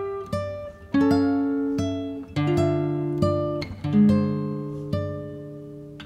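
Acoustic guitar music: a slow run of plucked notes and chords, each ringing out and fading.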